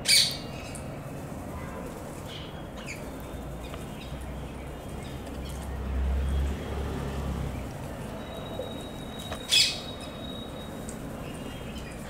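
Rose-ringed parakeets calling: two short, loud calls, one at the start and one about nine and a half seconds in, with a few fainter chirps between. A low rumble rises and fades around the middle.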